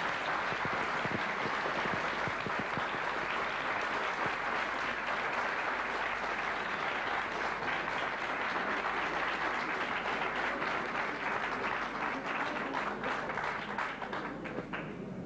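Audience applauding steadily, thinning out just before the end.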